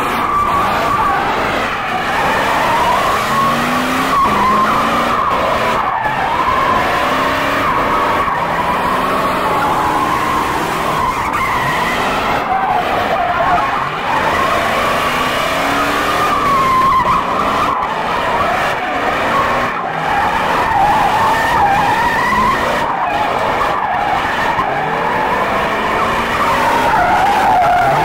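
Pickup truck doing donuts: its spinning tires squeal in one long, wavering screech while the engine revs up and down again and again.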